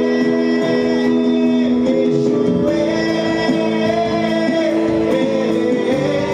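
A man singing a Hindi worship song into a microphone, his voice wavering on long held notes, over electronic keyboard accompaniment playing sustained chords.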